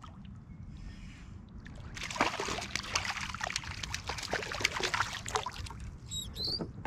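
A small hooked pickerel thrashing and splashing at the water's surface beside a kayak as it is brought in on the line. The splashing starts about two seconds in and goes on irregularly.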